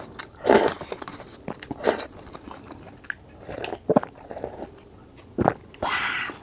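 A person eating a cup of spicy instant noodles: noodle slurps and chewing, then sips of broth taken straight from the cup, as a series of short wet bursts with small clicks between them.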